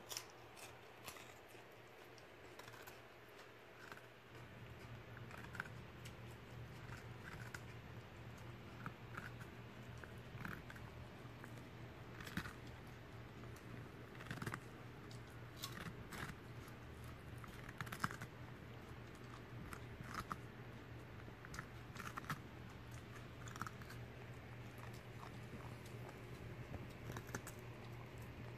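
A poodle chewing and biting into raw cucumber, giving faint, irregular crisp crunches and clicks of its teeth, one or two a second.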